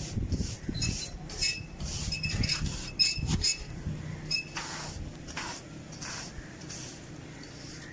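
Short, irregular scraping strokes of a hand tool on the concrete floor of an emptied water tank as settled silt is cleared out, with a few light metallic clinks in the first half. The strokes grow fainter in the second half.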